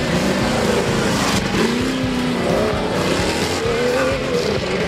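Competition off-road jeep engines revving hard, their pitch rising and falling again and again with the throttle.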